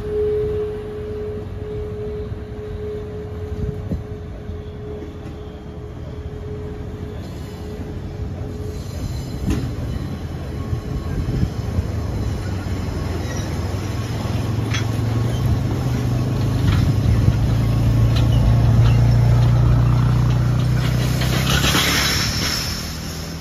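A narrow-gauge sugarcane train of empty steel mesh cane bins rolling past, with wheels rumbling and bins knocking on the track, the rumble building in the second half. Near the end the wheels squeal. A steady tone in the first part fades out about a third of the way in.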